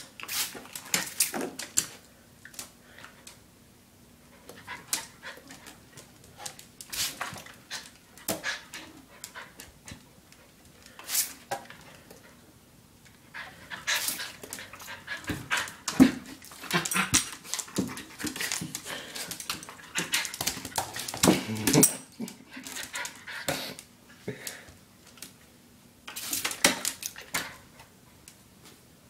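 Wire-haired fox terrier scrambling about in a bathtub: bursts of quick clicks and knocks, denser at times, mixed with the dog's own breathing and whining sounds.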